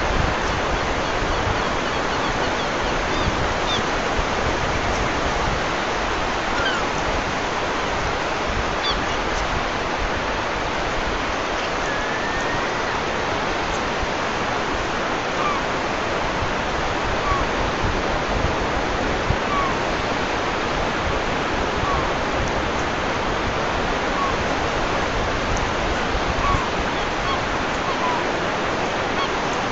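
Steady rushing noise, even and unbroken, with faint short chirps every second or two.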